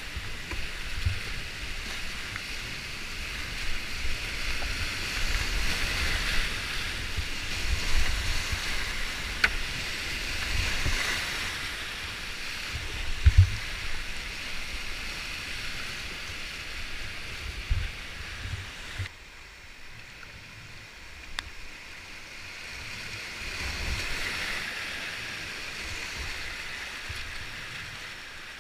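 Whitewater of a class V rapid rushing and foaming around a kayak, with splashes and short low thumps as the boat and paddle hit the water. The rush drops off suddenly about two-thirds of the way through and swells again near the end.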